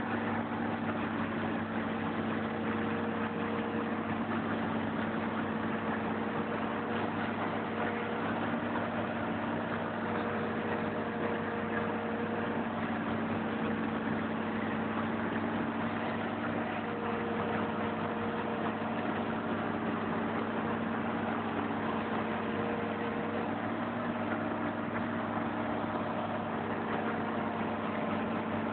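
Hydraulic excavator's diesel engine running steadily, heard from inside the operator's cab, with a higher tone that comes and goes every few seconds.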